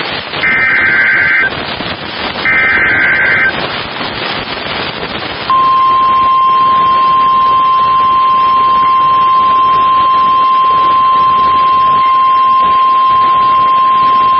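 NOAA Weather Radio emergency alert: SAME header data bursts, each a shrill warbling screech about a second long and a second apart, with radio hiss between them. About five seconds in, the steady 1050 Hz Warning Alarm Tone begins and holds for about nine seconds. This is the alert that comes before a severe thunderstorm warning.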